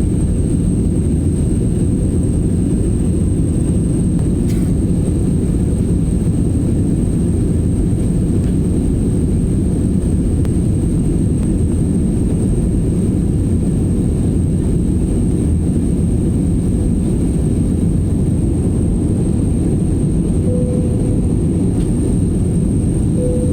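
Steady low rush of jet airliner cabin noise in flight, from the engines and the airflow, with a thin steady high whine above it.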